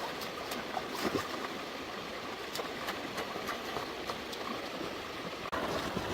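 Stream water running steadily, with a few small splashes and ticks.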